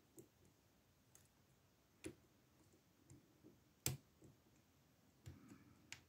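Faint, scattered metallic clicks from a lock pick working the spool pins inside a Master Lock No. 140 brass padlock, about eight in all, the sharpest about two and four seconds in. A soft scraping rustle near the end. The picking brings the lock to a false set on its spool pins.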